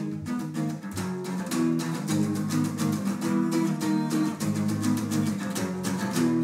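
Acoustic guitars strumming chords in a steady, even rhythm: the instrumental intro of an acoustic rock song.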